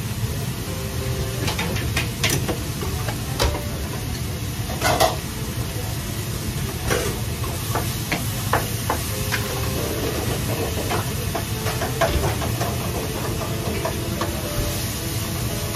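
Commercial wok station running: a steady hiss and hum from the gas burner and range, with frequent clinks and knocks of metal utensils against the wok and pans as food is stirred and fried.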